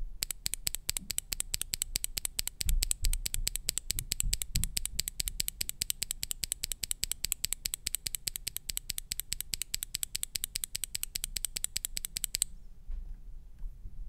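A KBDIY Fantasy Virus (Poison) mechanical keyboard switch with an ABS keycap pressed over and over by hand, giving a rapid, evenly spaced run of bright clicks that stops shortly before the end. Low muffled thumps of children running upstairs come through a few seconds in.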